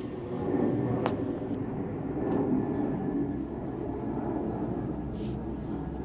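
Garden birds chirping, with a quick run of falling high notes about three seconds in, over a steady low rumble.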